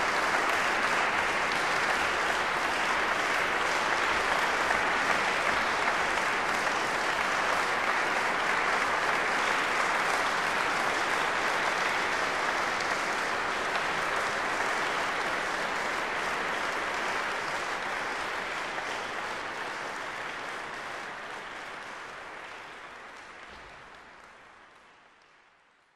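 Audience applauding steadily, fading away over the last several seconds.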